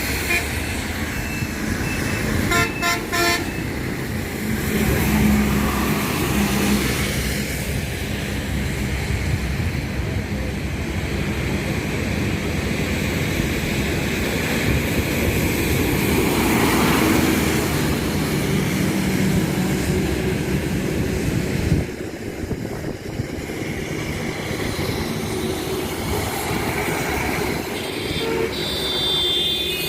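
Road traffic: vehicles running past with horns tooting now and then, including a short toot about three seconds in and another near the end. The sound drops abruptly about two-thirds of the way through.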